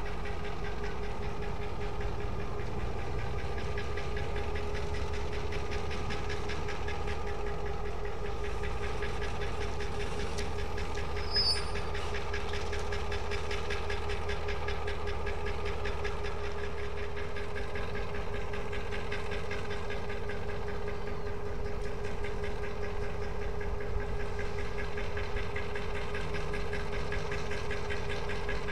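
Pair of diesel locomotives running light at low speed: steady diesel engine running with a steady whine over a deep rumble, and a brief click about eleven seconds in.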